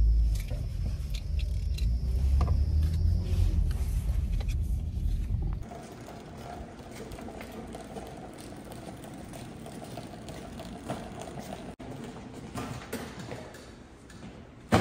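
Low, steady rumble of a car driving, heard from inside the cabin, for about the first five and a half seconds. Then it cuts abruptly to a quieter stretch with a faint steady hum and scattered light clicks.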